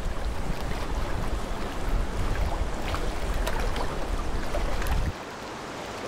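Lake water lapping at the edge of thawing ice, under a low rumble of wind. The rumble cuts off abruptly about five seconds in, leaving a softer hiss of water.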